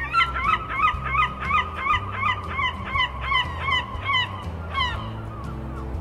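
Gull calling in a fast run of short, sharp notes, about three a second, that stops near the end.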